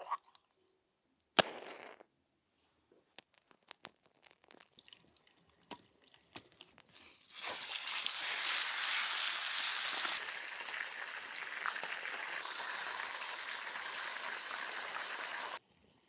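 A single knock, then a wood fire crackling with scattered pops. About seven seconds in, a loud steady sizzle starts as the chicken fries in a pan over the fire, and it cuts off suddenly just before the end.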